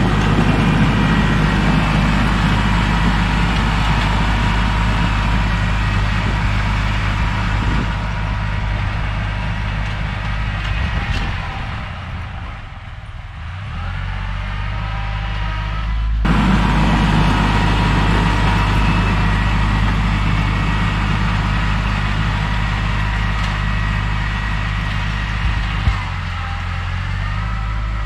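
Kubota L3301 tractor's three-cylinder diesel engine running steadily. It drops in level briefly about twelve seconds in, then comes back up, with an abrupt change about sixteen seconds in.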